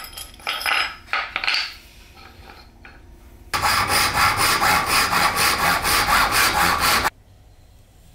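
A thin-bladed hand saw cutting through a small wooden strip with quick, even strokes, about five a second, for about three and a half seconds from the middle of the clip; this is the loudest sound. Before it come a few short clinks and knocks as small brass square tubes and wood pieces are handled.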